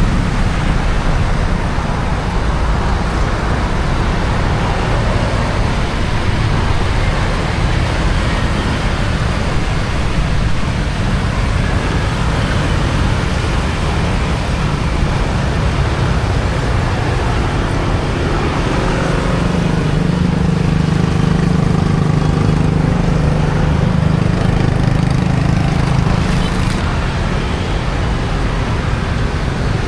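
Steady low rumbling noise of the kind heard near road traffic, with an engine's droning hum coming up over it from about 19 to 26 seconds in.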